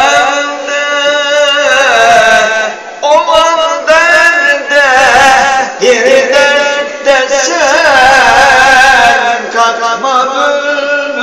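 An elderly man singing solo and unaccompanied in long, held, ornamented melismatic lines with a wavering pitch, pausing briefly for breath between phrases. This is the traditional Turkish chanted vocal style of a hoca, sung with the hands cupped to the ears.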